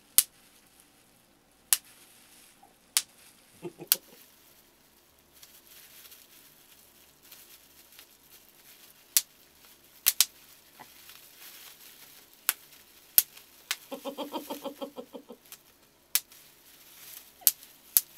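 Bubble wrap being squeezed and popped by hand: single sharp pops, sometimes two close together, at irregular intervals of one to a few seconds, with faint crinkling of the plastic in between. About two-thirds of the way through there is a short, rapidly pulsing laugh.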